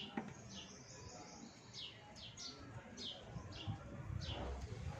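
Baby birds chirping repeatedly: short, high chirps that slide downward, about one every half second.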